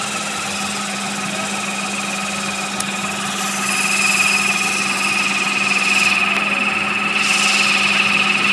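A small motor running with a steady high-pitched whine, growing a little louder about four seconds in.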